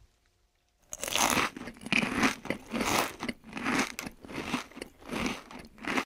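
Crunchy food being bitten and chewed: a steady run of about eight crunches, one every two-thirds of a second or so, starting about a second in.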